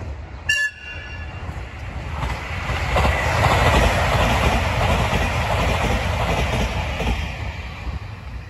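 Passenger express train passing close by: a brief high toot about half a second in, then the rumble and clatter of the cars swells, stays loud for a few seconds and fades as the train goes by.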